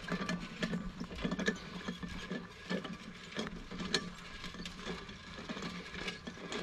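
Landzie peat moss spreader, a mesh drum full of peat moss, being pushed and rolling over bare soil, with a steady run of irregular clicking and rattling as the drum turns.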